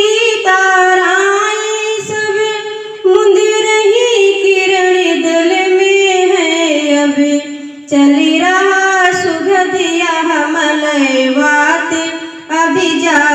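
A woman singing a Hindi poem to a slow, melodic tune, in long, gliding held notes. The phrases break briefly about three and eight seconds in and again near the end.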